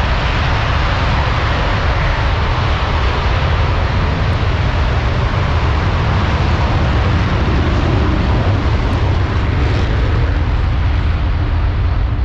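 Four Boeing F/A-18 Super Hornet jets taking off in formation with afterburners lit: loud, steady jet-engine noise with a heavy low rumble.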